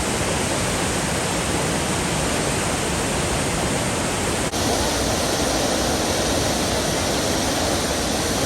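Bagmati river in flood, a steady rush of fast, heavy water. There is a brief dip about four and a half seconds in, after which the rush sounds slightly different.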